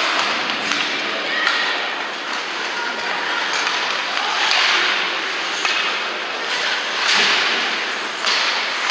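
Ice hockey play: skate blades scraping and carving on the ice in bursts, the strongest about four and a half and seven seconds in, with scattered clacks of sticks and puck.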